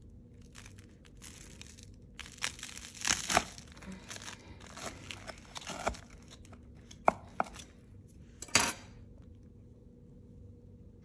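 Knife sawing through a toasted bread sandwich, the crisp crust crackling and crunching in irregular strokes. A couple of sharp knocks come about two-thirds through, then it goes quiet.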